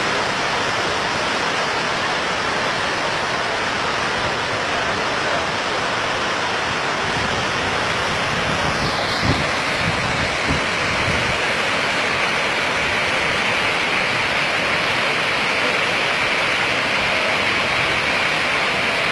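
Muddy floodwater torrent rushing past in a steady, unbroken roar of churning water, with a couple of dull low thumps about nine and ten seconds in.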